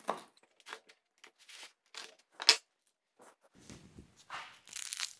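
Knife cutting through the crisp baked crust of a pepperoni pizza: a run of short crackles and crunches, the loudest about two and a half seconds in. Near the end comes a denser crunching as the crust is bitten into.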